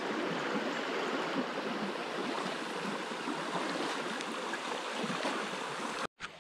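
Creek water rushing over rocks, a steady, even rush that cuts off suddenly near the end.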